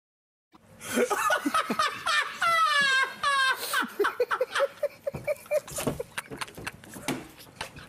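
A person laughing, starting about half a second in: a couple of long falling laughs, then a quick run of short laughs that trails off.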